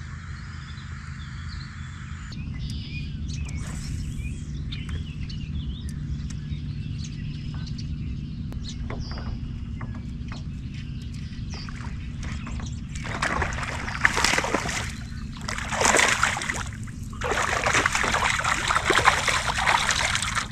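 Water splashing and sloshing beside a kayak over a steady low rumble. A run of louder, irregular splashes comes in the last several seconds as a hooked bass thrashes at the surface and is brought in.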